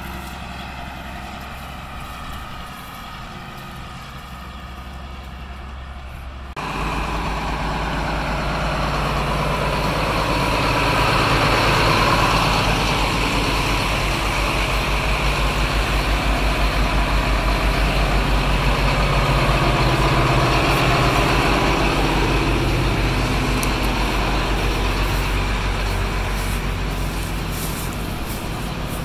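John Deere 4955 tractor's six-cylinder turbo diesel engine running under way, pulling a planter past at close range. The engine is fairly quiet at first, then jumps abruptly louder about six seconds in with a fast, even low pulsing, swelling and then easing off slightly near the end.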